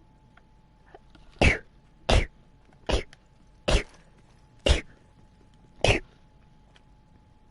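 A person sneezing six times in quick succession, short sharp sneezes about a second apart.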